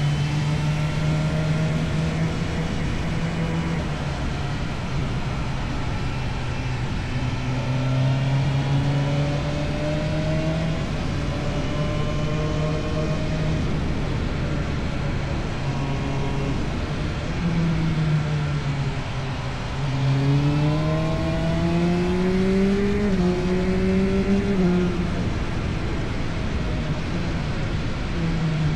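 Motorcycle engine running through an Akrapovic exhaust under way, its note mostly steady. About twenty seconds in, the pitch climbs as the bike accelerates, with a brief drop near the end of the climb, then it settles back to a steady note.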